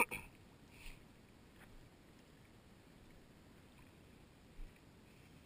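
A sharp knock at the start, then a few faint splashes and sloshes of shallow water as a PVC ghost shrimp pump is worked into the wet sand.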